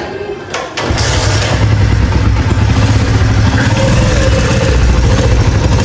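A motorcycle engine, freshly repaired, starts up about a second in and runs steadily.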